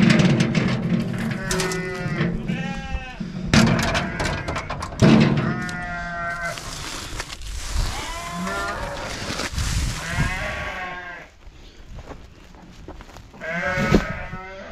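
A flock of sheep bleating loudly at feeding time, many wavering calls overlapping one another, with a few sharp clatters early on and a rushing hiss partway through. The calling thins out after about eleven seconds.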